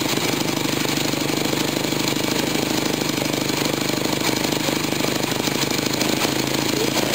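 Classic motorcycle engine idling steadily, with a fast, even firing chatter.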